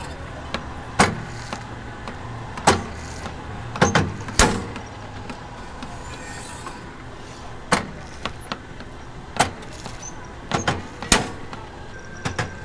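Shrimp-cracker puffing press popping: about a dozen sharp pops at uneven intervals as crackers are puffed under heat and pressure, over a steady machine hum.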